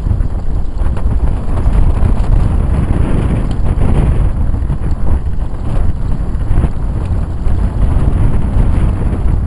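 Wind buffeting the camera microphone, a loud, constantly fluctuating rumble, with brushing and crackling as people wade on foot through dry marsh reeds and brush.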